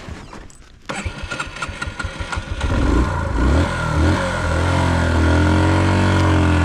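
Dirt bike engine being restarted: a quick run of cranking pulses from about a second in, the engine catching near three seconds and then revving hard and holding at high revs.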